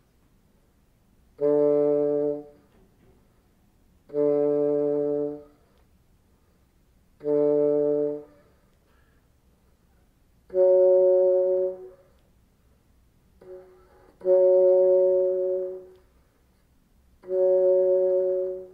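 Bassoon playing soft single notes, each attacked and then tapered away: three D's, then three F-sharps a little higher, each about a second long. It is a test of the reed's response and taper, and the player judges that the attacks come off better than the tapers, so the reed is a little unresponsive.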